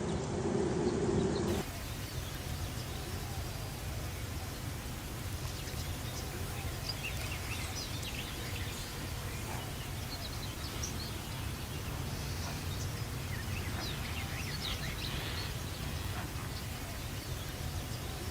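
A dove cooing briefly at the start, then after a cut, faint short bird chirps scattered over a steady low rumble of background noise.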